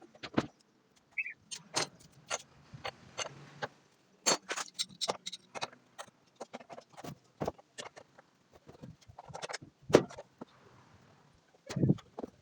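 Irregular clicks, clinks and knocks of tools and parts being handled while a Brastemp washing machine is taken apart, with a louder knock about ten seconds in and a dull thud near the end.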